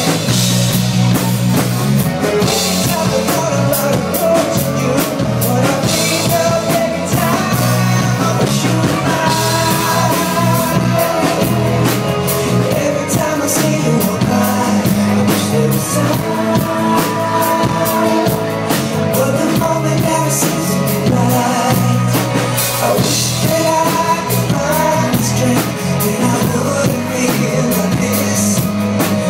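Live band playing a pop-rock song loudly, with drum kit, guitar and singing, heard through the venue's PA during a sound check.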